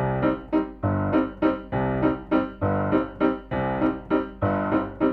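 Piano music, likely an electric piano, playing a steady rhythmic pattern of repeated chords over low bass notes.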